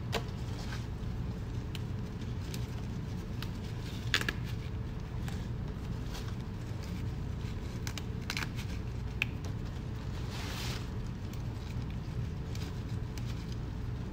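Saluyot (jute mallow) leaves being plucked off their stems by hand: scattered small snaps and leafy rustles, a louder snap about four seconds in and a brief rustle near the end, over a steady low hum.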